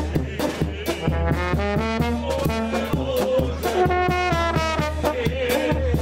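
Serbian wedding brass band music: brass instruments playing a melody of held, stepping notes over a steady drum beat.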